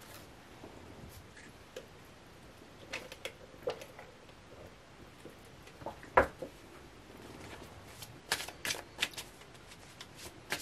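A tarot deck being handled and shuffled: scattered soft card snaps and taps, a sharper one about six seconds in and a short cluster near the end.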